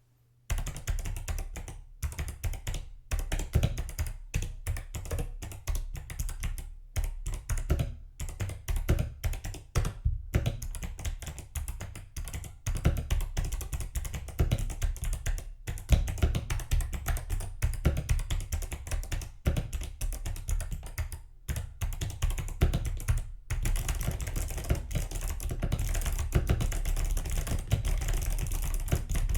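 Typing on a Retro 87 mechanical keyboard: a quick, uneven run of key clacks with a few short pauses. It grows denser and nearly continuous near the end.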